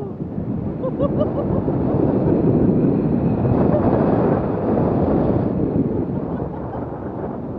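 Wind rushing and buffeting over the camera microphone in paragliding flight, a steady rumbling hiss that swells louder in the middle and eases off toward the end.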